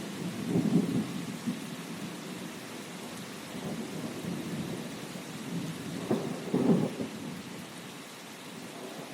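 Steady rain falling, with two low rumbles of thunder: one about half a second in and a louder one around six to seven seconds in.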